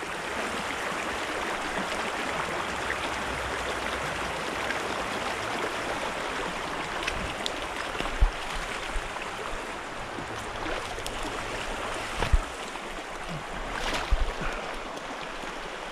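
Small creek running over a shallow rocky riffle: a steady rushing of water, with a few brief low thumps about a third of the way in and again near the end.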